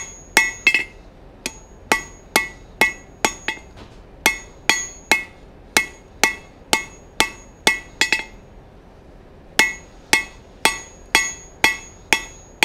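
Hand hammer striking a glowing 4142 steel bar on a steel anvil, about two to three blows a second, each blow ringing out from the anvil. These are light finishing blows cleaning up the taper of a hot-cut chisel, with brief pauses about four and eight seconds in.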